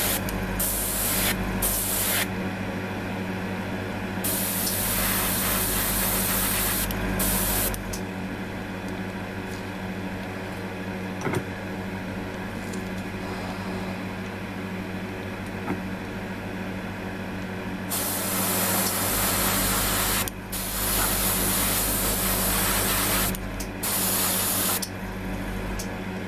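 Airbrush spraying paint in on-and-off bursts of hiss, each lasting a second to a few seconds, over a steady low hum.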